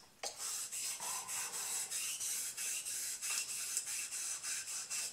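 Straight razor blade stroked lightly across a wet 3000/8000 grit combination waterstone with slurry on it, a steady series of quick, even scraping strokes. The razor's existing edge is being refined and polished on the stone.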